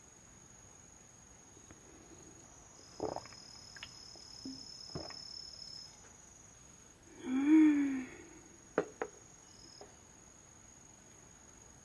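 Garden insects trilling in a steady, high, even tone, with a second, lower insect tone joining for a few seconds. Dishes are knocked lightly on a wooden table twice. About two-thirds of the way through comes a short call that rises and falls in pitch, followed by two sharp clicks.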